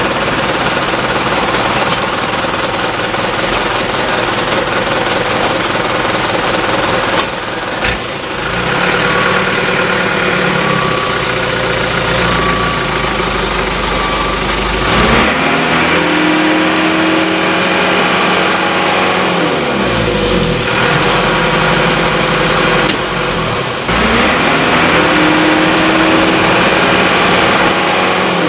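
Radio-controlled Huina dump truck's motor and drivetrain running under load as the truck churns in deep mud. The pitch slides down and back up twice in the second half, as the throttle is worked.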